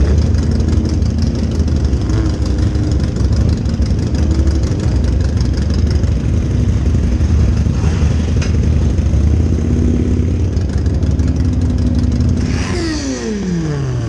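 Motorcycle engines running at low speed in a group ride, the rider's own bike close up with other bikes around it. Near the end an engine's pitch falls steeply, as of a bike revving down or passing by.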